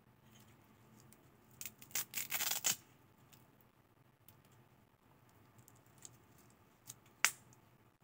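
Velcro and snap-button closure of a nylon-webbing water-bottle holder clip being pulled open: a burst of crackly rasping about two seconds in. Then a few faint clicks, and one sharp click near the end as the strap is fastened again.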